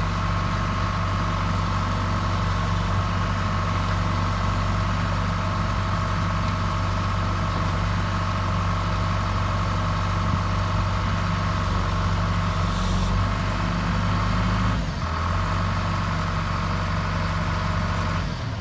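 John Deere 310G backhoe loader's diesel engine running at a steady note. A short hiss comes about thirteen seconds in, and the engine note dips briefly about fifteen seconds in.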